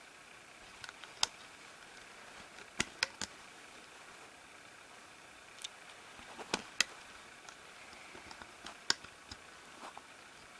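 Small, irregular clicks and snaps of rubber bands being stretched onto the plastic pegs of a Rainbow Loom with the loom hook, about a dozen spread unevenly over faint background hiss.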